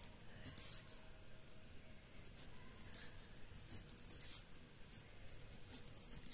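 Blue ballpoint pen writing on ruled notebook paper: faint, short scratchy strokes at irregular moments as figures are written.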